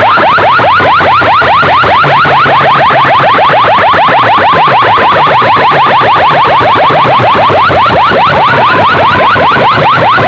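A DJ sound system blasting a siren-like electronic effect at full volume: short rising whoops repeat rapidly, about seven or eight a second, over a steady low bass line.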